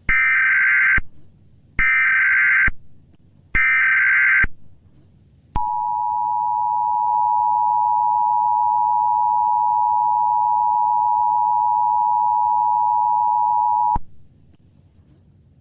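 Emergency Alert System tones: three bursts of data tones about a second each (the SAME header), then the two-tone attention signal, a steady dual tone held for about eight seconds that cuts off suddenly, announcing an alert message.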